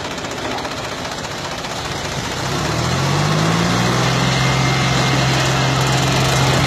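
Diesel tractor engines working hard in a tractor tug-of-war between a John Deere and a Farmtrac 60. About two and a half seconds in, an engine revs up, its note rising briefly and then holding at a steady, louder drone under load.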